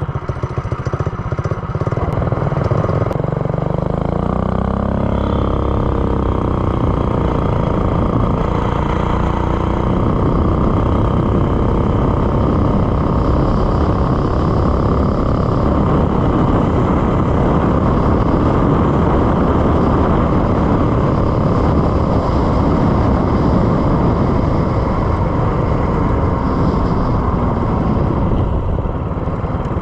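Small engine with a new header and stainless steel muffler, speeding up from about three seconds in, then held at high revs on a full-throttle run, easing off briefly near the end.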